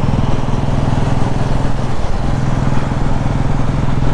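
Motorcycle engine and exhaust running steadily under way, with a brief dip about two seconds in. The exhaust sound comes through clean, without crackling or popping.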